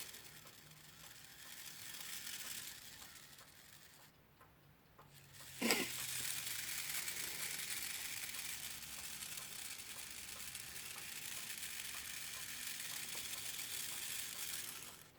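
Westclox Lark alarm clock's gear train spinning freely with the pallets removed, letting the mainspring's power down: a high, fizzing whirr held back by a thumb on the wheels. It eases off about four seconds in, comes back with a click and runs steadily until it stops at the very end.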